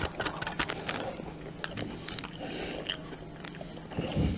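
Close-up chewing and crunching of a honey graham cracker dipped in vanilla pudding, with a few crisp crunches in the first second. A dull low bump comes near the end.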